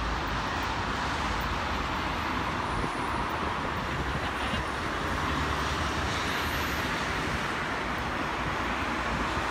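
Steady road traffic noise: an even wash of sound with no single vehicle standing out as it passes.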